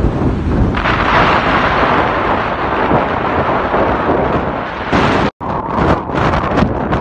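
Wind buffeting the microphone: a loud, steady rumble and hiss with no pitch to it, which cuts out for an instant about five seconds in.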